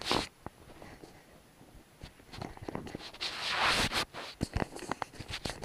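Handling noise from a Drift action camera being gripped and adjusted: a loud knock at the start, then fingers rubbing and scraping on the housing with scattered clicks and a longer scratchy rub a bit past three seconds in.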